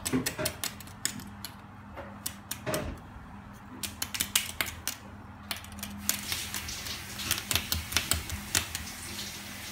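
Irregular sharp clicking of a beagle's claws on a hard tile floor as it moves around, coming faster in the second half.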